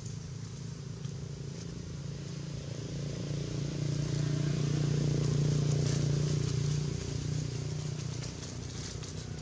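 Low, steady hum of a motor vehicle's engine, swelling louder for a few seconds in the middle as it passes and then easing back.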